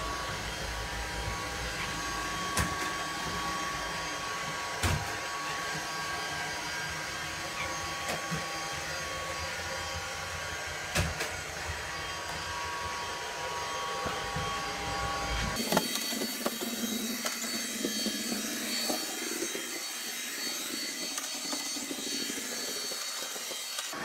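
Eyugle KK290A robot vacuum cleaner running steadily: an even motor-and-suction hum with a few high whining tones, broken by a few sharp knocks. About two-thirds of the way through, the deep rumble suddenly drops out and the whine changes pitch.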